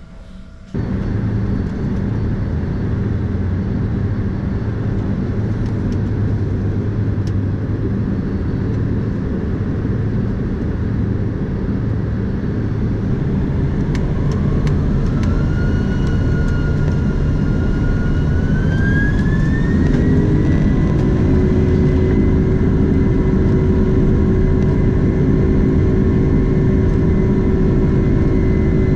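Jet airliner cabin noise: a steady rumble, with the engines' whine climbing in pitch over several seconds about halfway through and then holding steady, as when the engines spool up for takeoff.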